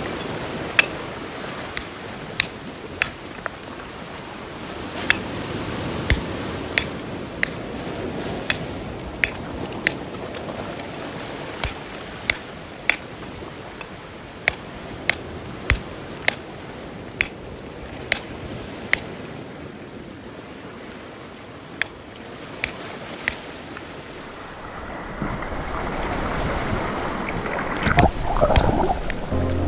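Sea water washing, with sharp clicks at irregular intervals about once a second. Near the end the water swells into a louder rush and splash.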